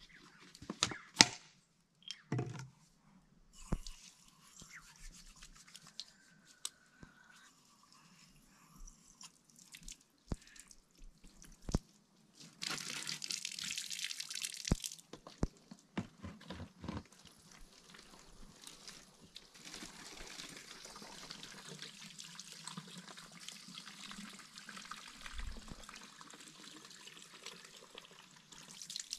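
Water running from a rubber hose and splashing into and over a plastic bottle as it is filled, with scattered clicks and taps as the bottle is handled. The flow is loudest for about two seconds a little before halfway, then runs on steadily until just before the end.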